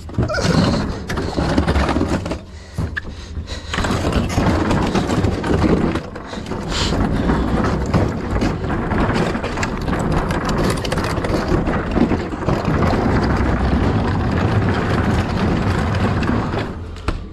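Truck on the move: steady engine and road rumble with scattered knocks and clatter.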